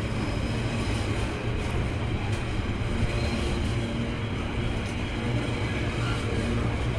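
A train running on the rails: a steady, even rumble with rail noise, no single event standing out.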